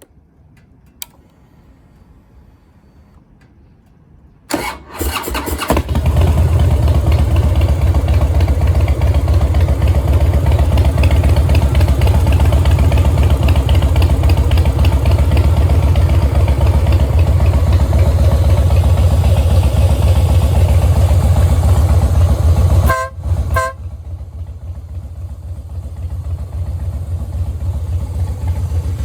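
Harley-Davidson Twin Cam 96 V-twin with a Freedom Performance aftermarket exhaust, started by its electric starter about four and a half seconds in. It catches after about a second and idles loud and steady. About three-quarters through there is a brief break with two short horn beeps, and the engine sounds quieter afterwards.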